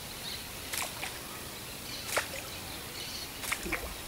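A Clyde topwater stickbait is twitched on the water and makes a few short, sharp plops, about one every second or so, as it dives and pops back up. A faint steady hiss runs underneath.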